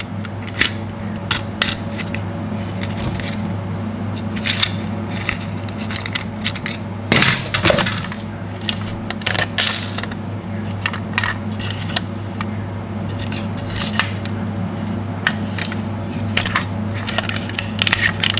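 Die-cast toy ambulances handled in the hands and against a wooden box: scattered clicks and clacks of small metal and plastic parts, with a louder clatter about seven seconds in. A steady low hum runs underneath.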